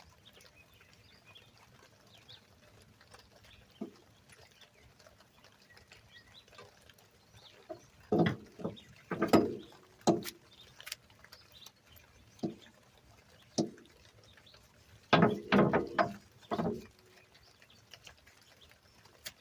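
Brake caliper guide pins being worked in and out of their rubber boots by hand, giving short clicks and squeaks in two clusters, about 8 and 15 seconds in. One pin is dry of grease and sticks.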